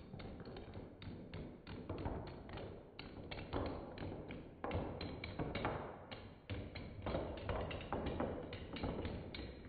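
Padlocks toppling like dominoes, each knocking over the next: a rapid, uneven run of clacks and thuds, several a second.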